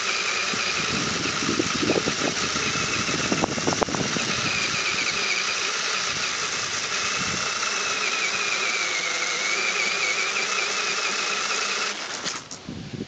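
HPI RC crawler's electric motor and gears whining as it drives over grass, the pitch wavering with the throttle, with a few knocks and tyre rustle in the first few seconds. The whine cuts off about twelve seconds in.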